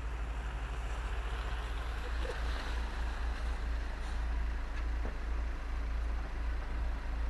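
Off-road vehicle engine running with a steady low rumble, under a rushing hiss of wind and tyre or water noise.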